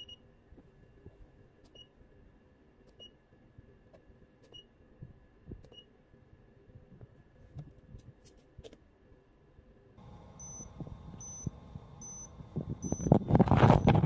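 Electronic buzzer on a homemade micro:bit prop bomb giving faint short high beeps about one every second and a half, then from about ten seconds in a higher beep about twice a second as a countdown. Near the end a loud rustling, rubbing handling noise covers the beeps.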